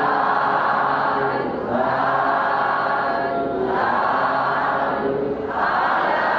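Large lay congregation chanting a Buddhist recitation in unison, many voices together in phrases about two seconds long with a brief pause between each.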